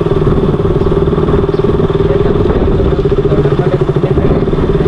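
Motorcycle engine running at a steady pitch, with a fast, even pulse.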